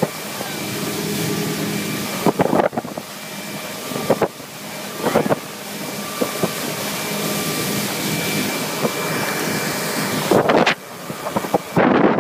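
Motorboat engine running steadily under way, with wind rushing over the microphone. A few short, louder bursts break through now and then.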